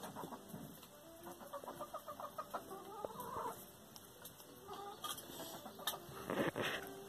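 Hens clucking in short, quick series of soft notes while they peck at a dog's food. Light clicks and a louder scuffling clatter about six and a half seconds in come from the dog and hens eating out of a steel bowl.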